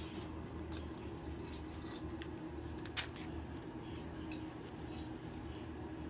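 Male Eclectus parrot's beak clicking and tapping against its cage bars as it climbs: scattered small clicks, one louder about three seconds in, over a steady low hum.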